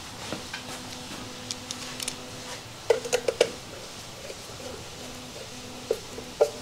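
Small metallic clicks and taps of a screwdriver working on a motorcycle headlight's mounting screws, with a quick cluster of sharp clicks about three seconds in and a couple more near the end.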